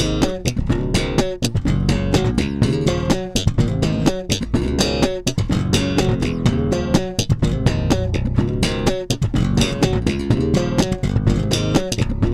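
Electric bass guitar played fingerstyle, a busy groove of quick, sharply plucked notes.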